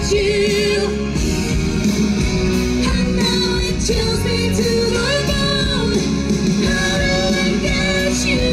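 Two singers performing a duet through handheld microphones over loud backing music from a stage PA, the sung notes held with vibrato.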